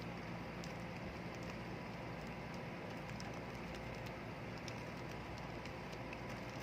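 Light, irregular clicking of a Rubik's cube's layers being turned in quick succession as an OLL algorithm is performed, over a steady faint hiss.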